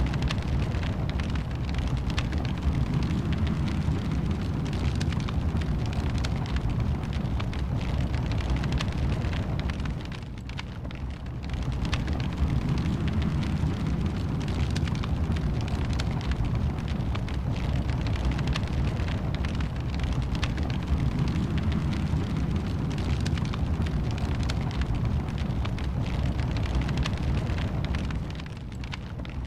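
Wood fire burning in a fireplace: a steady low roar with dense, fine crackling throughout, easing briefly quieter about ten seconds in and again near the end.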